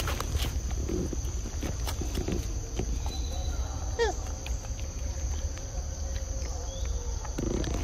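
Steady high-pitched insect drone over a constant low rumble, with scattered soft clicks and one short falling call about four seconds in.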